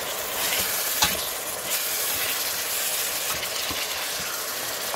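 Chicken pieces sautéing in a stainless steel pot, a steady sizzle and hiss, with one sharp click about a second in.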